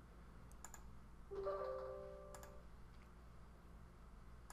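A few faint mouse clicks, and about a second in a short, soft computer chime of several held notes that fades away within about a second.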